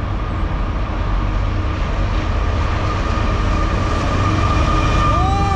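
Norfolk Southern freight train led by GE AC44C6M diesel-electric locomotives approaching, a low rumble that grows gradually louder, with a thin steady high-pitched tone above it.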